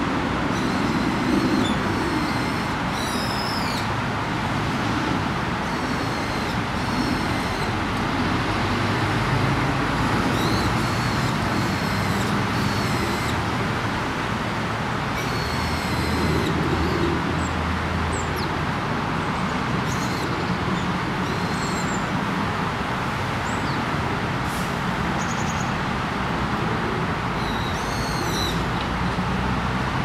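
Steady rumble of distant road traffic, with short high-pitched bird chirps every few seconds.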